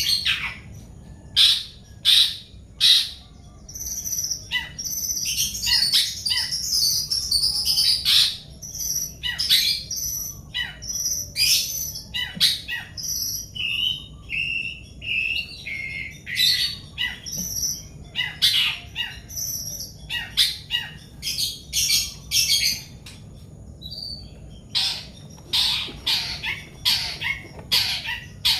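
Birds chirping, with many short, rapid calls, several overlapping at once.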